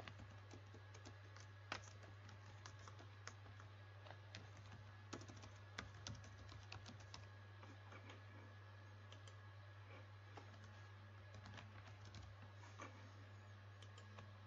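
Typing on a computer keyboard: faint, irregular keystrokes that come thickly for the first half and thin out to scattered clicks later, over a steady low hum.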